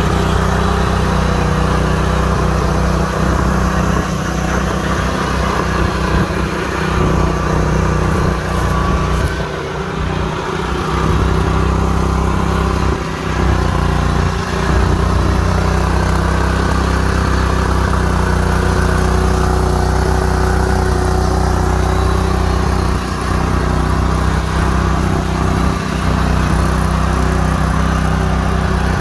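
John Deere GX-series riding garden tractor's engine running at a steady speed as the tractor is driven, a constant even hum with a brief dip in level around ten seconds in.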